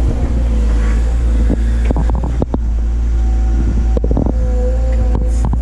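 Doosan DX180 excavator's diesel engine running with a steady low hum, with a scattering of sharp clicks and knocks over it.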